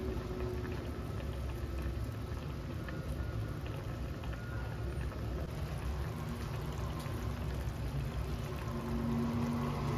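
Eggplant and tofu in sauce simmering in a stainless steel saucepan on a gas burner: a steady bubbling with small scattered pops.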